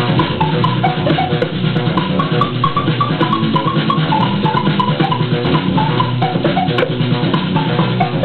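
Upbeat music with a steady drum beat and a bouncy melody of short, quick staccato notes.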